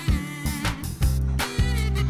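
Background music with a steady beat of about two drum hits a second over a bass line.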